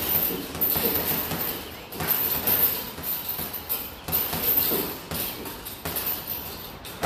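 Boxing gloves hitting a heavy bag during a bag workout: a sudden hit every second or two over a noisy background.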